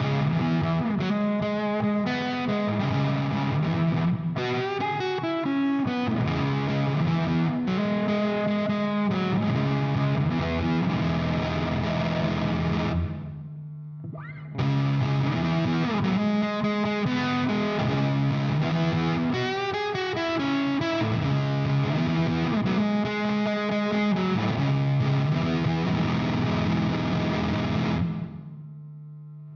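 Electric guitar with P90 pickups played through fuzz, overdrive and chorus pedals: a distorted riff, stopped for about a second and a half midway, then played again and left to ring out near the end. A low steady hum sits underneath and remains as the notes fade.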